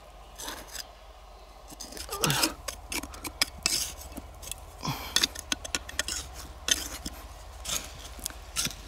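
A small metal hand trowel scraping and digging into loose, crumbly soil, with irregular scratches and gritty scrapes of the blade and earth being flicked aside.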